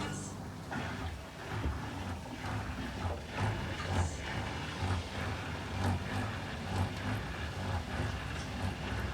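Indesit Innex BWE 91484 washing machine grinding while draining, a low rumble that swells and scrapes roughly once a second. The grinding began after a washable face mask caught in the drain pump's impeller and filter was taken out.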